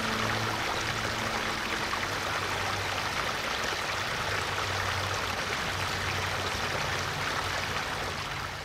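A small garden stream trickling and splashing over rocks, a steady rush of running water that fades out near the end.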